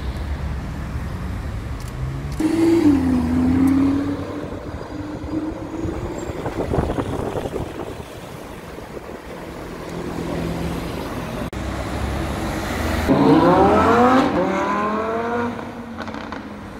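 High-performance sports car engines accelerating hard along a city street, revving loudly. Near the end one climbs in pitch through a couple of gear changes as it passes.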